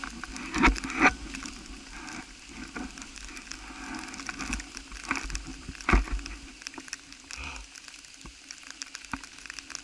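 Wind rushing over the microphone, with a few sharp thumps and rustles, twice about a second in and once about six seconds in.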